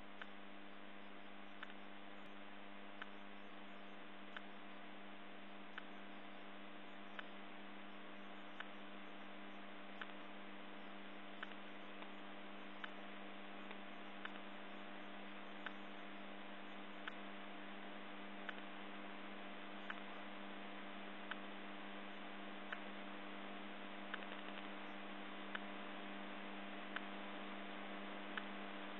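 Roomba robot vacuum running: a steady motor and brush hum with a short click repeating about every second and a half.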